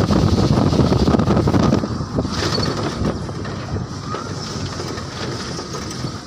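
Wind buffeting the microphone over the rumble of a moving vehicle, with no steady tone; the buffeting eases about two seconds in.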